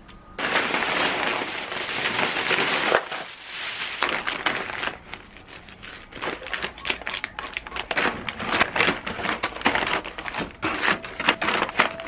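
Plastic snack bags crinkling and crackling as they are handled and packed into cardboard boxes. A dense stretch of rustling in the first few seconds gives way to many short, irregular crackles.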